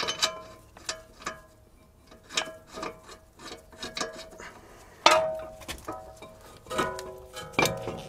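Metal clinks and taps as a steel brake pad carrier is fitted back onto the front hub knuckle beside the brake disc: about ten sharp clinks, each ringing briefly, the loudest about five seconds in.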